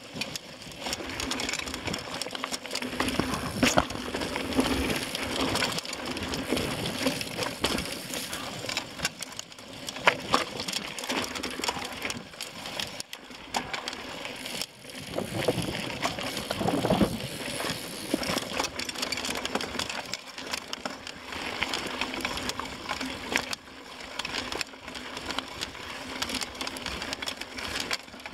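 Mountain bike riding over rocky dirt singletrack: tyres crunching over gravel and loose stones, with constant rattling and knocking from the bike as it jolts over the rocks.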